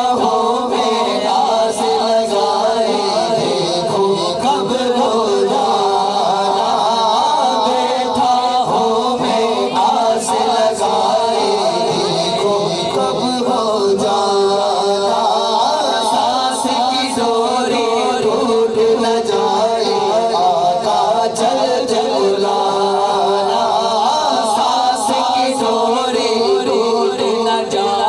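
Men singing an Urdu naat into microphones without instruments: a lead voice with other men's voices singing along.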